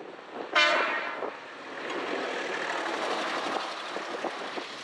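A railcar's horn gives one short blast about half a second in. The approaching railcar then builds into a steady rushing noise, mixed with strong gusting wind and blowing snow.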